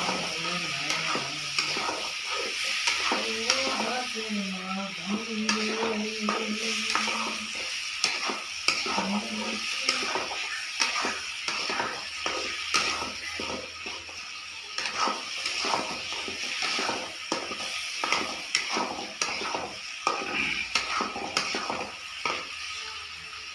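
Chicken and vegetables sizzling in a black kadai over a gas flame, with a spatula stirring and scraping against the pan in many quick, irregular strokes.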